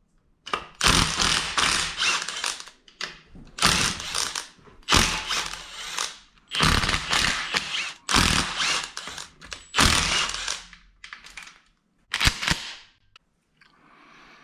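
Hand ratchet wrench clicking in about eight short runs, one after another, as bolts are worked loose.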